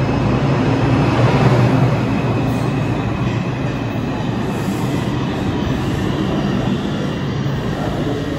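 R142-type New York City Subway train running on the track, a loud continuous rush of wheel and track noise over a low steady hum, loudest about a second in and then slowly easing off.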